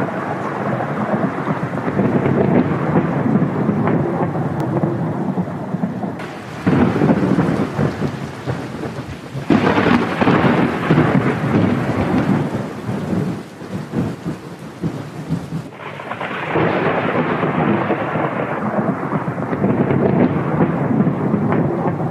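Thunderstorm: thunder rumbling over rain, with new thunderclaps breaking in sharply about six, nine and a half, and sixteen seconds in.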